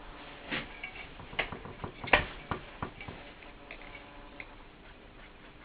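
Infinity Genesis bass speaker driver handled on a workbench as it is picked up and turned over: a string of sharp clicks and knocks from its frame against the bench and hands. The loudest knock comes about two seconds in, and after about three seconds only a few faint clicks remain.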